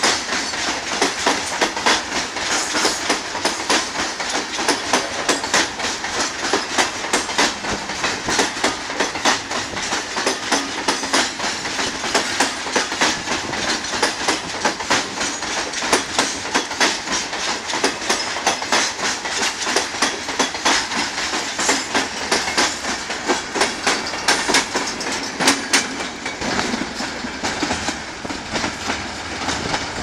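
Loaded coal train's open freight wagons rolling past, their wheels clattering over the rail joints in a rapid, steady clickety-clack over a rolling rumble, easing off a little near the end.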